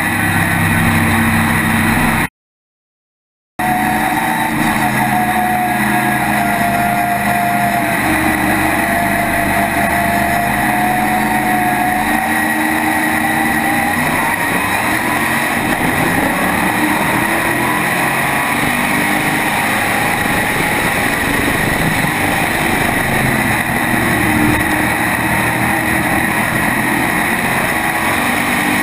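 SK modified race car's small-block V8 running hard at racing speed, heard onboard from just above the engine. The audio drops out completely for about a second near the start.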